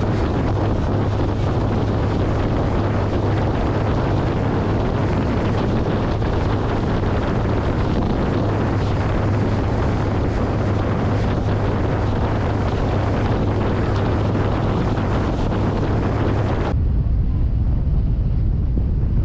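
Wind buffeting the microphone on a moving boat, over a steady low hum from the boat's engine. About three-quarters of the way through the sound changes suddenly: the higher hiss drops away and a deeper wind rumble takes over.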